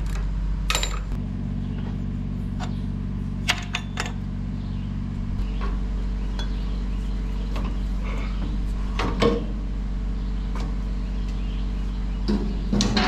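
A few sharp metallic clinks and knocks from hand tools and boots on a stripped truck's steel chassis and transmission, the loudest about three seconds in, again around nine seconds in and near the end, over a steady low hum.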